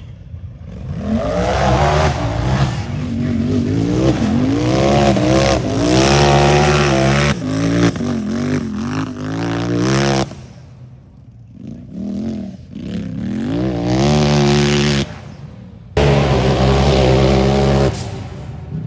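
Unlimited-class race UTV engine revving hard, its pitch repeatedly climbing and dropping with the throttle. The sound falls away suddenly about ten seconds in, revs more faintly for a few seconds, then comes back loud.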